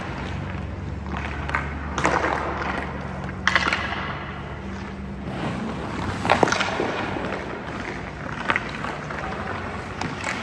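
Ice hockey shooting drill: skate blades scraping and sticks hitting pucks, heard as several sharp scrapes and knocks as shots are taken and the goaltender drops and slides into a butterfly. A steady low hum runs underneath.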